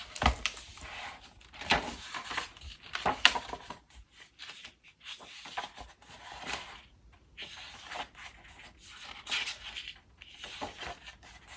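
Paper being handled: a paper planner's pages and cover rustling and rubbing as they are turned, with a few light knocks in the first few seconds.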